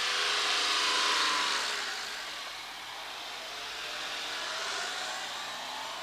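Vehicle passing: a hissing rush that swells to its loudest about a second in and fades, then a second, weaker swell around five seconds, with a faint falling and then rising pitch.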